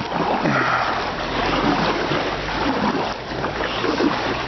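River water splashing and trickling around a kayak as it is paddled.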